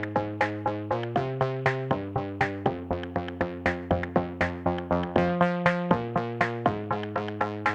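Background electronic music: quick repeating synth notes with a steady beat over chords that change every second or so.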